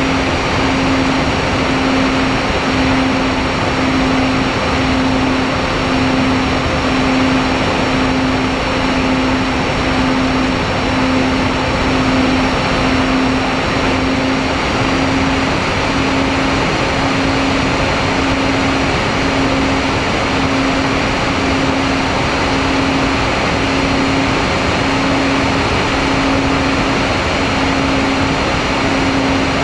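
MFD 1800 Twin FPV plane's twin electric motors and propellers in steady cruising flight, heard from its onboard camera with a constant rush of airflow. A steady propeller hum swells and fades about once a second.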